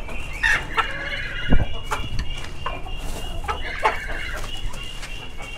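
Chickens clucking, with two drawn-out calls about half a second in and again near four seconds, and a low thump about a second and a half in.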